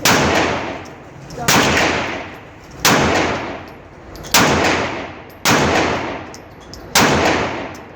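Semi-automatic pistol firing six single shots at a slow, steady pace, about one every second and a half, each crack followed by a long echo. These are the last rounds of the magazine before it runs empty.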